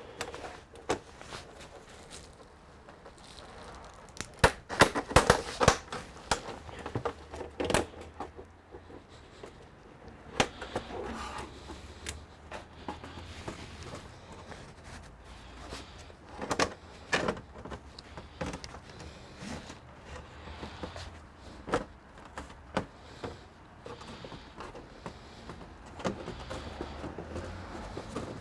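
Scattered clicks, taps and knocks of hands and tools working on a computer's plastic casing and internal parts during disassembly, over a steady low hum.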